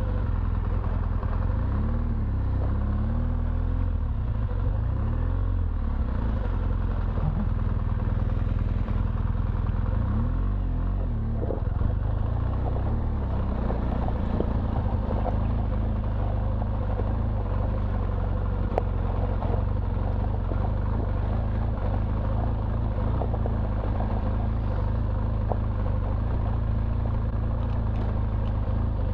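BMW R1200GS Adventure's flat-twin engine running steadily at low speed on a rocky dirt two-track, heard as a constant low rumble from on the bike.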